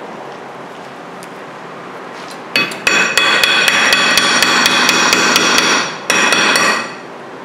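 Rapid hammer blows on the rusted-on rear brake rotor of a 2008 Hyundai Santa Fe, about four a second. The cast-iron rotor rings with each strike. The blows start about two and a half seconds in, stop briefly about six seconds in, then a few more follow. The rotor is held to the hub by a rust lip.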